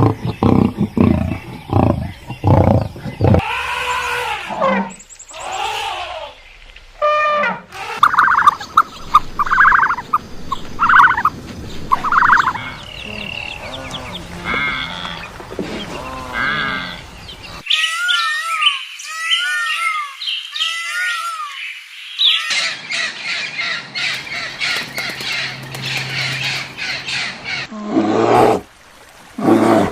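A string of different farm-animal calls edited back to back, changing abruptly every few seconds. Low calls at the start give way to higher calls, then a run of repeated bird chirps in the middle, then more low calls near the end.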